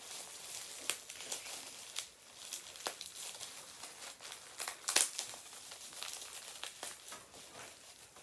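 Plastic packaging crinkling and crackling as a Funko Pop figure is handled out of its box insert, with irregular sharp snaps, the loudest about five seconds in.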